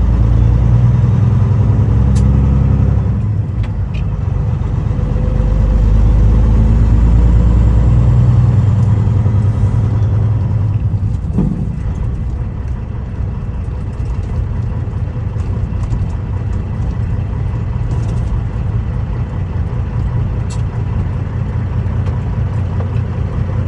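Semi-truck diesel engine running, heard from inside the cab: a loud low rumble that swells and eases in the first ten seconds, then settles to a lower, steadier drone.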